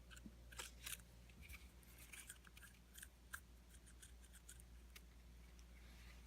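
Faint series of small sharp clicks and scrapes from small motor parts being handled, over a steady low hum.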